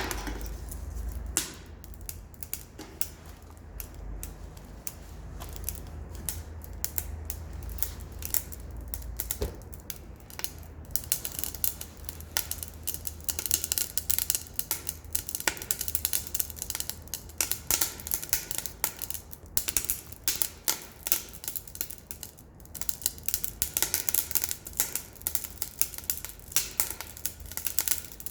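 Wood fire in a wood stove crackling and popping as pallet wood and scavenged box wood burn, with rapid, irregular snapping pops. The pops grow thicker and louder about eleven seconds in.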